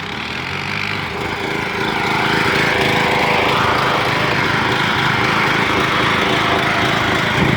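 Riding lawn mower's small engine running continuously, growing louder over the first couple of seconds and then holding steady.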